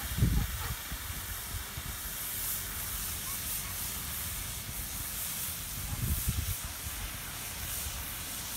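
Steady rushing hiss of open-air ambience at a park pond, with low wind buffets on the microphone just after the start and again about six seconds in.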